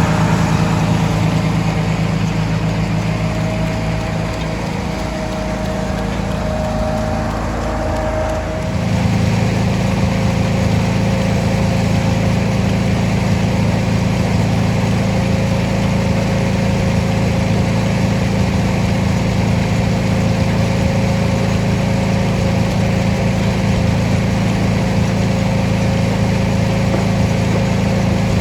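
1948 Farmall H tractor's four-cylinder engine running steadily under belt drive to an antique wood planer. The sound becomes louder and fuller about nine seconds in, then holds steady.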